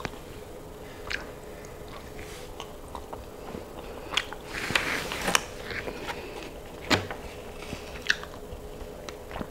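Close-miked eating sounds: a person chewing mouthfuls of food, with scattered short clicks and wet mouth noises that are busiest in the middle. A faint steady hum runs underneath.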